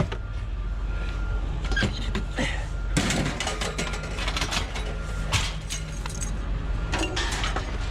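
Pieces of scrap metal clinking and clanking as they are handled and pulled apart from a tangled pile, in a run of short knocks, thickest from about three seconds in, over a steady low rumble.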